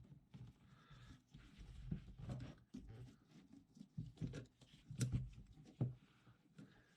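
Faint handling noises of small parts and tools on a workbench: soft knocks and light clicks, with one sharper click about five seconds in.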